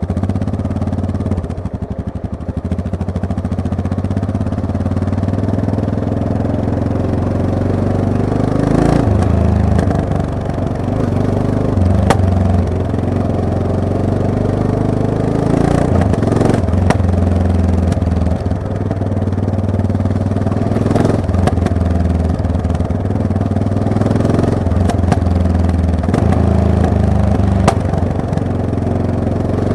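Yamaha MT-03 motorcycle engine through an Origin Tube aftermarket exhaust, running under way with the throttle opening and closing so the note rises and falls, easing off briefly about two seconds in. A few sharp knocks are scattered through.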